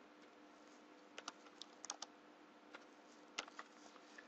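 Computer keyboard being typed on: a quiet run of about ten irregular keystrokes, starting about a second in.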